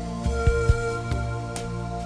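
Calm new-age style background music: held notes over a slow beat, with two low hits in quick succession about half a second in.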